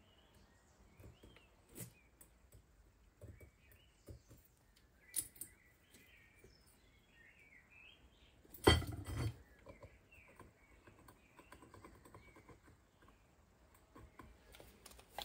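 Light scratching and clicking of a metal scriber marking a steel square tube, with a louder metallic clatter on the workbench about nine seconds in. Faint birds chirp in the background.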